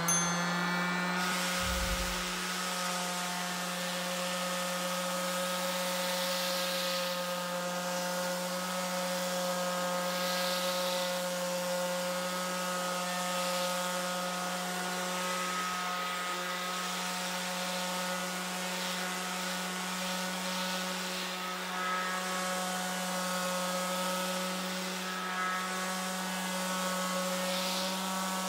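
TOTAL TF1301826 electric finishing sander (320 W) starting up right at the beginning and then running steadily, its pad sanding a weathered painted wooden board. A steady machine hum over the hiss of sandpaper on wood.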